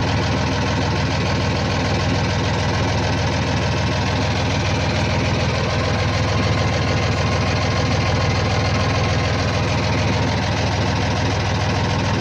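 A yacht's inboard diesel engine idling steadily with an even, unchanging hum.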